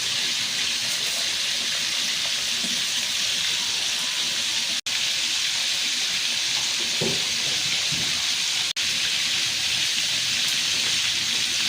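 Steady hissing noise with a few faint low knocks. The sound drops out abruptly for an instant twice, about five and nine seconds in.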